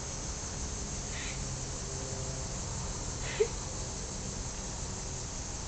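A steady high-pitched chorus of insects, with a fainter chirp repeating about every two seconds. A brief sharp squeak stands out about halfway through.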